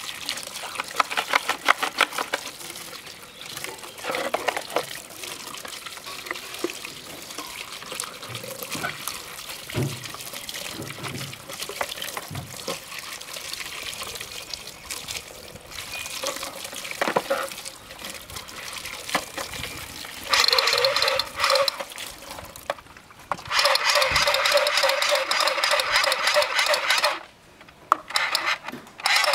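Water from a pipe pouring and splashing over plastic toy guns as hands rub and scrub them, with small clicks and clatter of plastic being handled. Near the end a louder pitched buzzing comes in twice, briefly and then for about three seconds.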